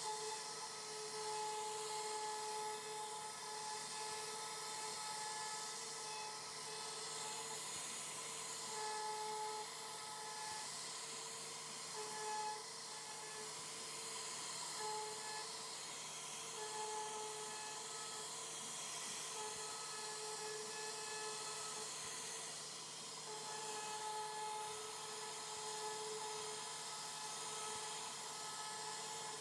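CNC router carving wood: a steady high hiss with a spindle whine that breaks off and returns every second or two as the bit cuts.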